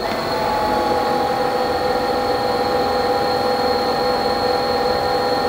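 GoPro Karma quadcopter's electric motors starting up and spinning its propellers at idle without lifting off: a steady whine made of several held tones that settles within the first half second and then holds unchanged.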